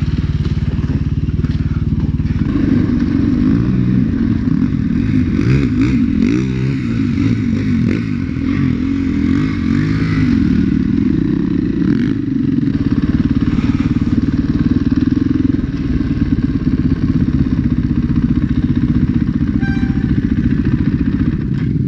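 Husaberg dirt bike's engine running, steady at first, then revving and running along a trail, its pitch rising and falling with the throttle.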